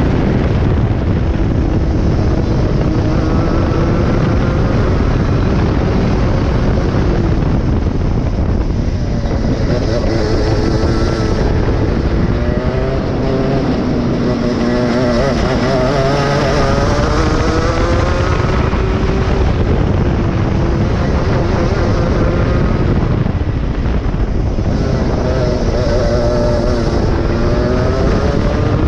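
A 23 hp go-kart engine running hard at speed, its note climbing and dropping several times as the kart speeds up and slows, over a constant low rush of noise.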